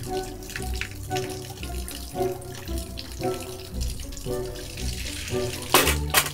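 Water trickling and splashing from a bamboo spout onto stone and into a ladle, with gentle background music. Two short, loud bursts of noise near the end.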